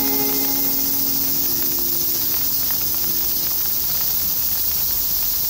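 An acoustic guitar's final chord ringing out and fading away over the first two to three seconds, leaving a steady, high-pitched chorus of insects.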